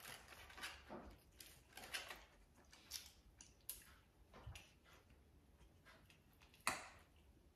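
Faint, scattered clinks and taps of forks and spoons against ceramic dinner plates while eating, with one louder clink near the end.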